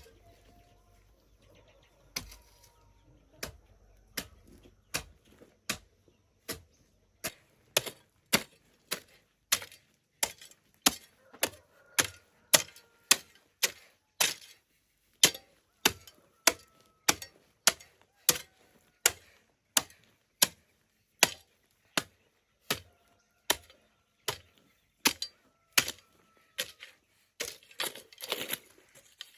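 A hand tool striking into earth over and over, a few scattered blows at first, then a steady rhythm of about two strikes a second, as the ground is broken up and levelled.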